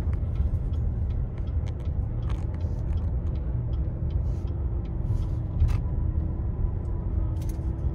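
Car driving slowly, with a steady low rumble of engine and road noise heard from inside the cabin. A faint steady hum joins in a few seconds in, with scattered light clicks.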